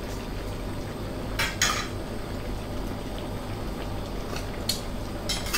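Curry broth simmering in a wok, with a metal ladle scraping and clinking against the pan twice about a second and a half in, and lightly a few more times near the end.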